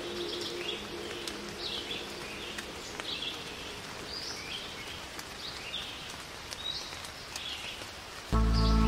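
Small birds chirping in short high calls, about two a second, over a steady hiss. Loud music with a heavy bass cuts in near the end.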